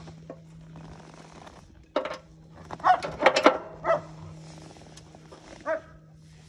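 A dog barking repeatedly in short bursts, with a quick run of barks about three seconds in, over a steady low hum.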